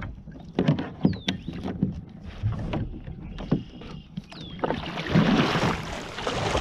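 Irregular knocks and clicks of fishing gear being handled, with two short falling whistles and a louder rushing noise in the last two seconds.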